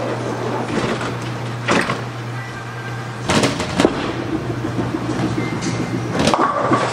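Bowling alley: a bowling ball hits the lane with a clatter and rolls with a low rumble for about three seconds, then pins clatter near the end, over a steady low hum.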